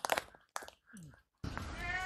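A few sharp clicks at the start, then a cat meowing: one long meow begins about one and a half seconds in and is still going at the end.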